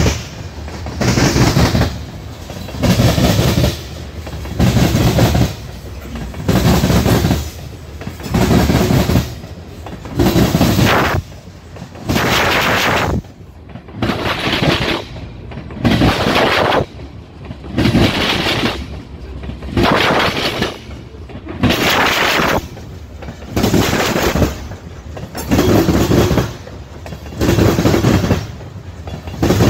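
Steel wheels of covered hopper cars clattering over a track switch as a freight train rolls past, a loud burst of banging about every two seconds as each pair of trucks crosses, with the rumble of the rolling cars in between.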